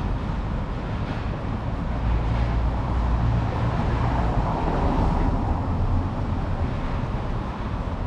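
Steady low rumble of passing traffic, growing louder about two seconds in and easing off after about six seconds.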